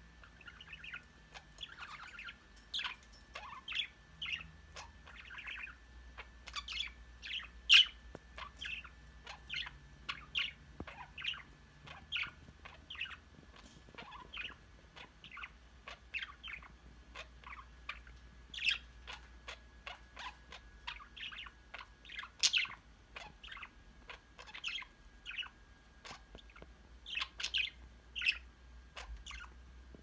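Budgerigars chirping and chattering: a quick, irregular stream of short high calls, several a second, with a few sharper, louder chirps standing out.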